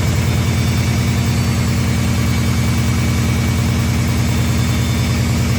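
New Indesit washing machine on its high-speed spin, knocking hard with a fast, even pulse as the drum rotates and the machine shakes. The cause is the transit bolts on the back, which were never removed.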